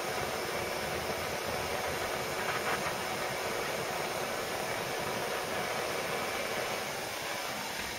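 Gas blowtorch flame hissing steadily, easing slightly near the end.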